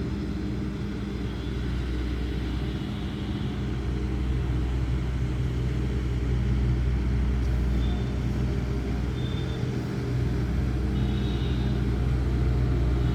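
Bobcat S650 skid-steer loader's diesel engine running steadily under work, a low continuous engine hum. A few short high-pitched tones come in over it in the second half.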